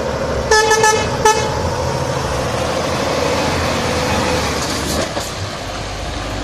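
A truck horn sounds twice about a second in, a short blast and then a briefer one, over the steady running of a Scania lorry's diesel engine and tyres as the articulated lorry turns close by.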